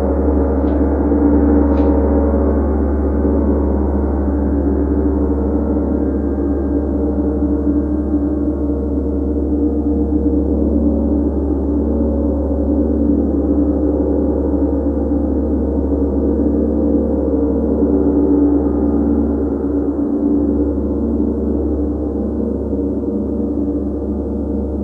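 Large tam-tam (chau gong) played continuously with a soft felt mallet, a dense, sustained wash of many overtones at a steady level that eases off slightly near the end.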